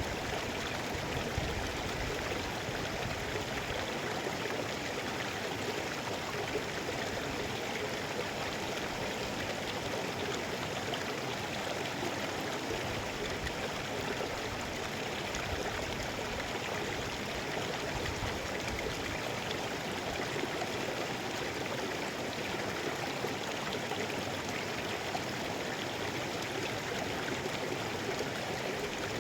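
Mountain stream flowing steadily over rocks, an even rush of water with fine splashing.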